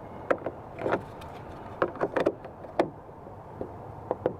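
Plastic dome-light lens cover being pressed back into its housing in a car's headliner: a scattered series of sharp plastic clicks and taps as it is fitted and snapped into place.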